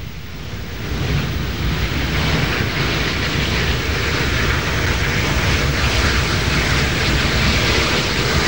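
GCR Director class 4-4-0 steam locomotive working a train under steam, its exhaust from the chimney making a loud, steady roar with running noise. It grows louder about a second in as the engine draws nearer.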